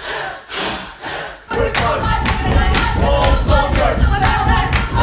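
A large group of voices crying out together in unison: a few short group shouts, then from about a second and a half in a loud, continuous massed cry with held pitches.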